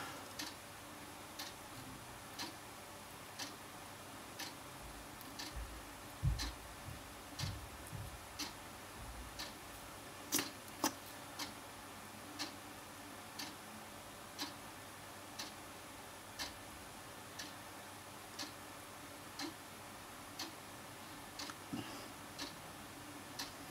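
A clock ticking faintly and evenly about once a second, with a few soft knocks and clicks in the middle.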